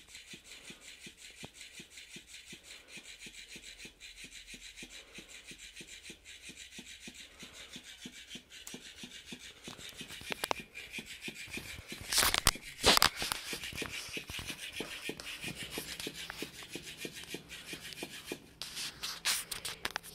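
Electric flopping fish cat toy flapping its tail on carpet: a rapid, even rasping, rubbing rhythm, with a few louder knocks a little past the middle.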